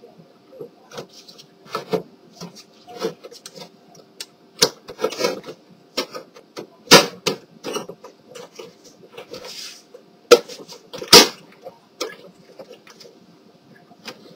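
Plastic side cover of an HP LaserJet M1522 MFP being pressed and snapped onto its catches by hand: a series of irregular plastic clicks and knocks, the loudest about seven and eleven seconds in.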